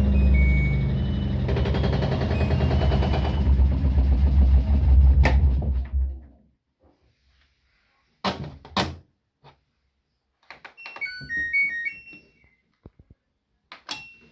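LG front-loading washing machine: the drum motor runs with a low rumble and hum that fades out and stops about six seconds in. A couple of sharp clicks follow, then a short electronic beeping tune from the control panel, and one more click near the end.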